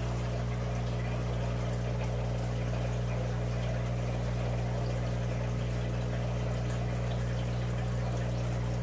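Aquarium pump humming steadily, with a light trickle of moving water.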